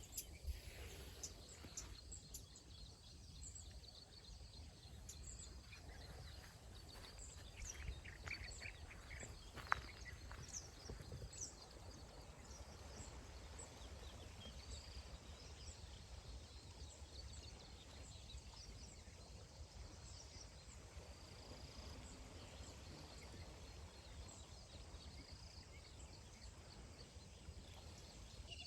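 Faint morning birdsong: scattered short, high chirps and calls from several birds over a low steady rumble, with one sharp click about ten seconds in.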